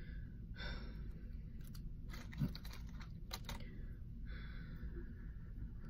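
Plastic press-on nail tips being handled and tried against fingernails: a few small sharp clicks and soft rustling over a low steady room hum.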